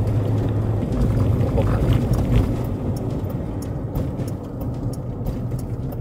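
Van cabin noise while driving slowly: a steady low engine and road hum, with a scatter of small light clicks from about three seconds in.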